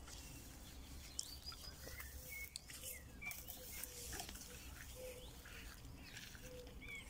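Faint outdoor ambience: small birds giving scattered short chirps and whistles, with a few soft clicks and rustles of movement through grass.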